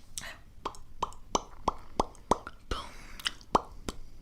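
Close-miked wet mouth sounds: a quick string of tongue clicks and lip pops, about three a second, with a couple of soft breathy puffs between them.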